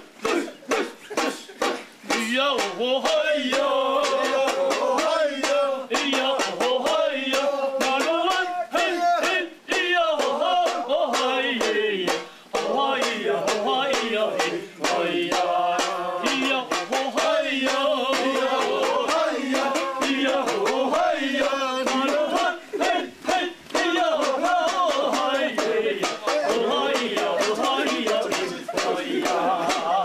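A group of people singing and shouting together in a lively dance song, set over sharp rhythmic knocks. The knocks are heard alone for about the first two seconds before the voices come in.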